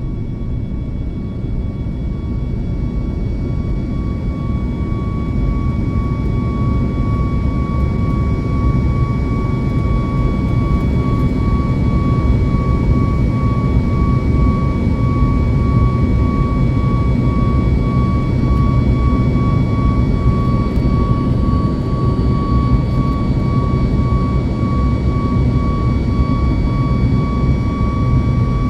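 Boeing 737 MAX's CFM LEAP-1B jet engines heard from inside the cabin: a steady high whine over a heavy low rumble that grows louder over the first dozen seconds, then holds.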